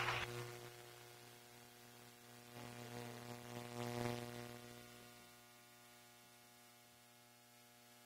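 Faint, steady electrical mains hum with evenly spaced overtones. It swells slightly a few seconds in, then fades to near silence for the second half.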